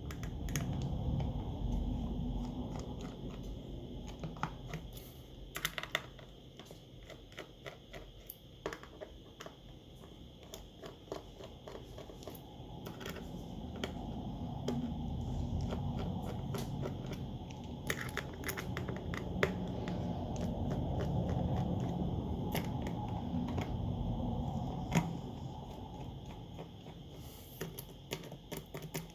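Small irregular clicks and taps of repair tools on a smartphone as its screws are taken out, over a low rumbling hum that swells up twice.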